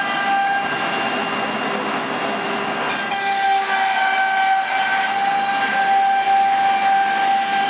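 1325 CNC router's spindle running with a steady high whine while its bit engraves a wooden board, over a rough rushing cutting noise. The whine grows stronger about three seconds in.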